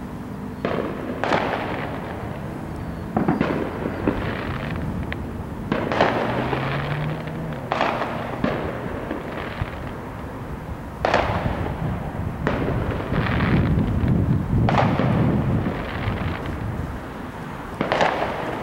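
Amateur fireworks going off: about a dozen sharp bangs one to three seconds apart, each trailing off in an echo. A low rumble swells for a few seconds past the middle.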